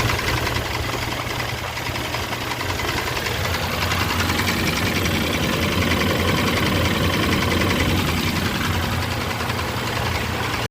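Mitsubishi Pajero's 6G75 3.8-litre V6 idling with a steady, rapid knocking: rod knock from a worn connecting-rod bearing.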